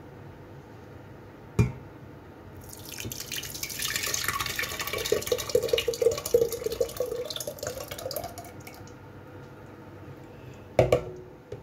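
Thick fresh tomato purée poured from a ceramic bowl into a stainless steel pot: a wet, gurgling pour that swells over about six seconds. A sharp knock comes about a second and a half in and another near the end.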